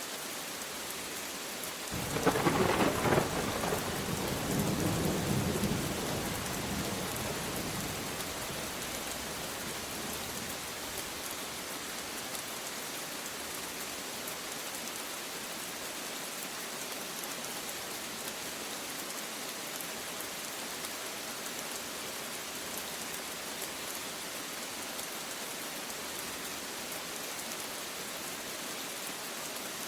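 Steady rain falling, with a thunderclap about two seconds in that rumbles on, swells once more and dies away over several seconds. After that, rain alone.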